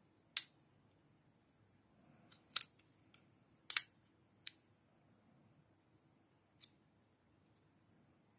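Sharp metallic clicks and snaps from a partly disassembled MAXACE Neptune knife's mechanism being worked by hand. There are about seven irregular clicks, some doubled, the loudest about four seconds in and a last one near seven seconds.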